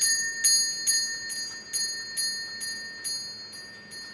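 Servant's call bell on a spring mount ringing: its clapper strikes about twice a second with the same bright ringing tones, each strike fainter than the last as the bell dies away.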